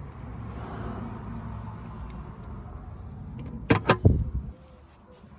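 A steady low background rumble, then a quick cluster of three or four sharp knocks nearly four seconds in.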